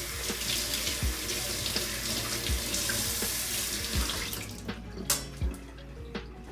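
Tap water running into a sink, then turned off about four and a half seconds in, over background music with a steady beat.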